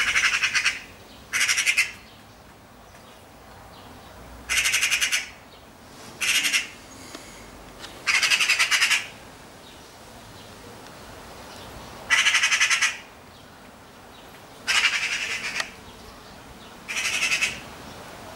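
Eurasian magpie giving its harsh rattling chatter, the alarm call magpies use to mob a predator. It comes as eight short rattles at irregular gaps.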